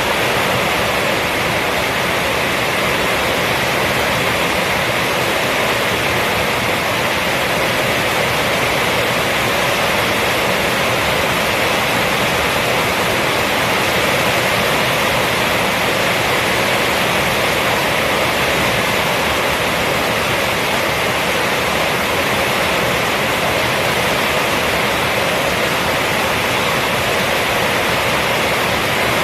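Heavy rain falling steadily on a roof, a dense, even hiss that neither swells nor breaks.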